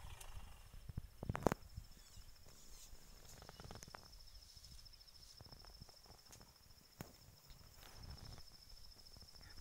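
A steady, high-pitched insect trill runs throughout, faint. Over it come a few sharp snaps, the loudest about one and a half seconds in, and soft rustles from a bull African elephant tearing and scuffing at grass with its trunk and feet close by.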